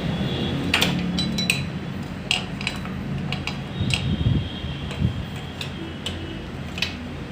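Steel hand tools clinking and tapping against the motorcycle engine's cylinder-head bolts, irregular metallic clicks, some with a short ring, over a steady low hum.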